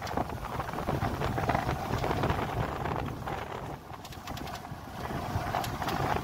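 Wind buffeting the microphone as a steady low rumble, with a vehicle's engine running underneath. The sound eases briefly around two-thirds of the way through.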